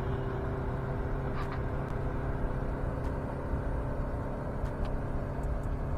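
A boat engine running steadily, a constant low hum.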